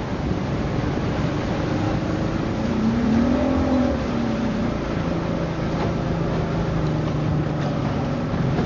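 Jet boat's big-block Ford V8 running under way. Its pitch rises briefly about three seconds in, then drops back to a steady note, over a rush of wind and water.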